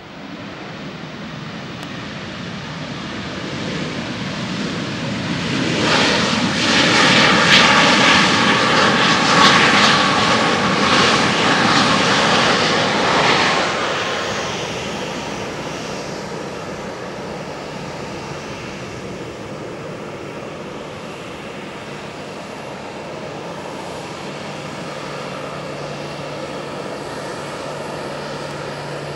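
Boeing 737-800's CFM56 jet engines at high power on the runway. The whine and rush build up, are loudest for several seconds as the jet passes, then drop to a steadier, lower engine hum.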